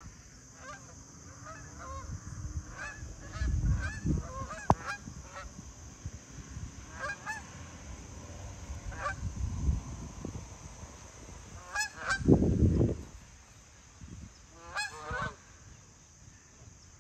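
A flock of geese honking as they fly over: short, repeated honks coming in clusters, with a few bursts of low rumble, the loudest about twelve seconds in.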